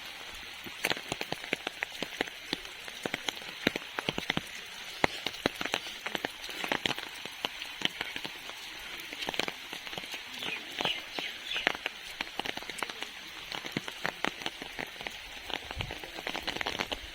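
Steady monsoon rain, with many sharp taps of heavy drops striking an umbrella over a continuous rain hiss.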